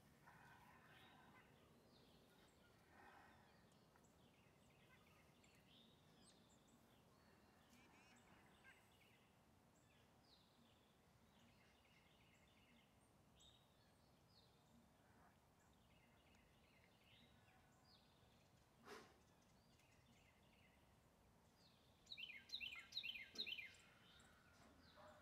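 Faint outdoor ambience with scattered short bird chirps. Near the end comes a quick run of about seven repeated bird notes, the loudest sound, and there is a single soft click a few seconds before it.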